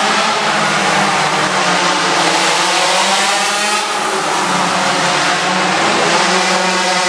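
Small engine of a pocket bike (minimoto) revving hard as it is ridden, its pitch rising and falling, with a sharp drop about four seconds in before it climbs again.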